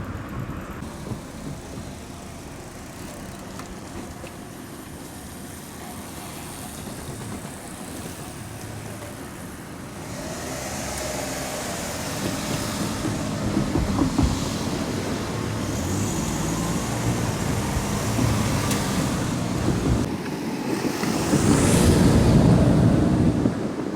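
Road traffic: motor vehicles driving past, quieter at first, then getting louder from about halfway, with the loudest vehicle passing close near the end.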